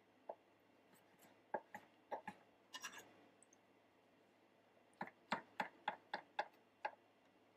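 Chef's knife chopping vegetables on a wooden cutting board. A few scattered cuts come first, then a quick run of about eight chops, roughly four a second, a few seconds in.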